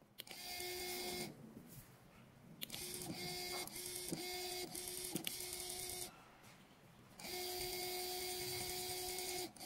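ASMC-04B servo's DC motor and gearbox whirring with a steady pitched whine as it drives to new positions set by turning the servo tester's knob. It runs in three spurts: a short one near the start, a longer one in the middle broken by several brief stops and clicks, and another near the end.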